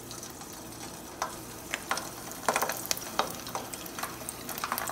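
Potato-and-semolina finger fries sizzling in hot oil as they are laid into the pot one by one: a steady hiss with scattered sharp pops and crackles.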